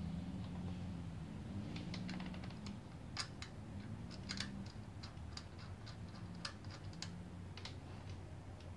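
Scattered small metallic clicks and taps as jets are fitted and threaded into an S&S carburetor by hand, over a low steady hum.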